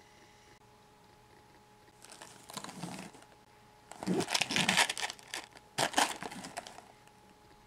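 Cardboard cake box being handled and turned over in the hands, rustling and scraping in three bursts, the middle one the loudest.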